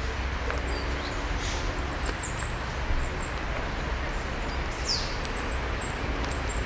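Outdoor ambience: a steady low rumble with short, high bird chirps scattered through, and one falling bird call about five seconds in.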